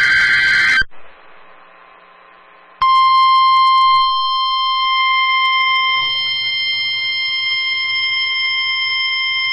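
The last burst of an Emergency Alert System SAME header, a second of buzzing data noise, then a pause of faint hiss, then the NOAA Weather Radio 1050 Hz warning alarm tone starting about three seconds in and holding as one steady tone. Together they announce a severe thunderstorm warning.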